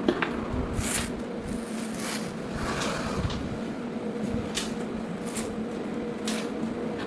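A steady electrical hum with scattered clicks and short scraping sounds of things being handled.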